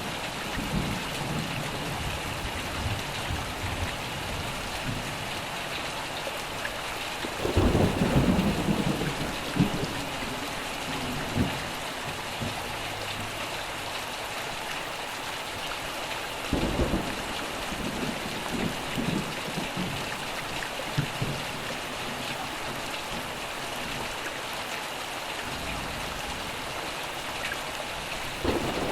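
Steady rain falling, with rolls of thunder rumbling low beneath it: one about a quarter of the way in, another just past halfway, and a third starting at the very end.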